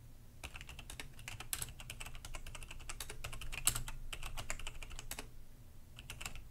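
Typing on a computer keyboard: a quick run of key clicks lasting about five seconds, a short pause, then a few more keystrokes near the end.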